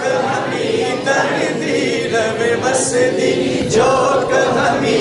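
Men's voices singing a Punjabi devotional kalam, unaccompanied.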